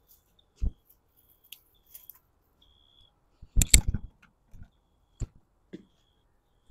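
Bitter gourds being picked from the vine: scattered small clicks and snips, with a louder cluster of snaps and knocks a little past halfway. A faint high tone comes and goes.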